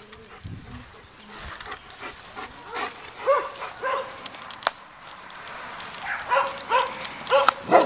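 German Shepherd dog giving short barks and yips in a series, coming closer together in the second half. A single sharp click about halfway through.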